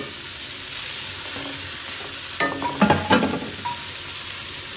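Sliced onions sizzling in ghee in an aluminium pot, a steady frying hiss, with a few sharper clatters of a stirring utensil against the pot between two and a half and three seconds in. The onions are still pale, early in frying toward golden brown.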